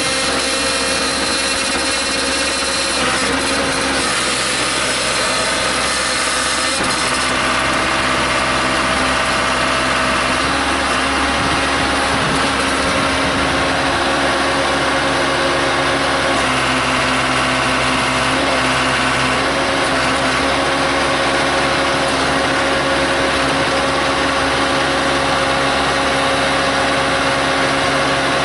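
Case 580C backhoe's engine running steadily at working speed, its note shifting slightly a few times as the load from digging comes and goes.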